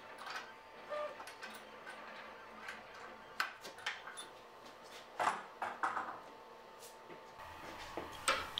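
Steel pipe clamps being fitted and tightened across a glued wooden bed frame: scattered light clicks and knocks of the clamp fixtures and pipes, a few seconds apart.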